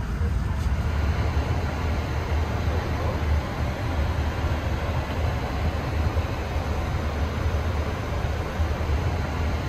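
Steady cabin noise inside a parked Boeing 787-9 airliner: a constant low rumble with the hiss of the cabin air supply.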